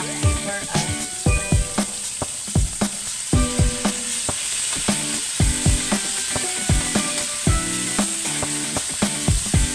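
Marinated meat, onion and tomato sizzling as they fry in a wok, stirred with a metal ladle that knocks and scrapes against the pan. Background music with a steady beat plays along.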